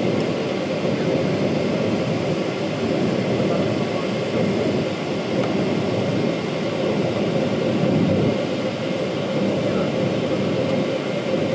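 Steady cabin noise of a jet airliner in flight, heard from inside the cabin: an even rush of engines and airflow with a faint steady whine running through it.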